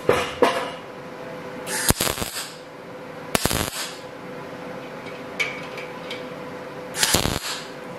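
MIG welder tack-welding steel angle bar: about four short bursts of arcing, each lasting about half a second, with a steady faint hum between them.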